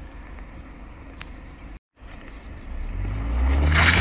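Land Rover Defender's engine idling low, then, after a brief dropout, revving up and growing much louder as the SUV climbs over rocks and mud, with a burst of harsher noise near the end.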